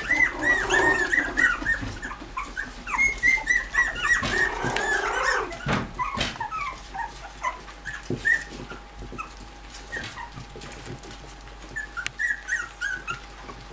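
Bichon Frisé puppies whimpering and squealing in quick high-pitched squeaks, crowding their mother to nurse. The squeaks come thick and fast in the first five seconds, then thin to scattered ones, with a couple of sharp knocks around the middle.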